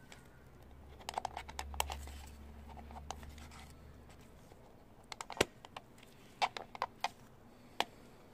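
Plastic oil filter housing cap and paper filter element being handled in gloved hands: clusters of small sharp clicks and scrapes as the element is pushed onto and pulled off the cap, with the loudest click about halfway through.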